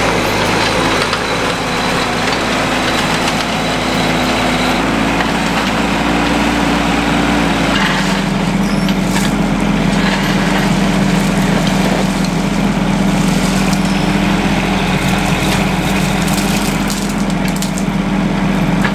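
Bobcat mini excavator's diesel engine running steadily, with the bucket digging into a gravel driveway. About eight seconds in the engine note changes to a stronger, lower hum as the machine works.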